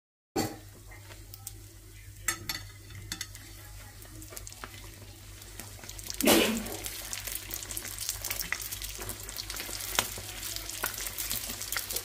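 Yeast-dough pies frying in hot oil in a stainless steel pan: a steady sizzle with light clicks from a fork and spatula. About six seconds in there is a sudden louder surge of sizzling as a pie is flipped, and the frying crackles more busily after it.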